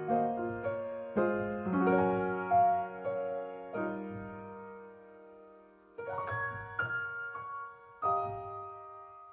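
Background piano music: gentle notes and chords that ring out and fade, with a brief lull about two-thirds of the way through before new chords come in.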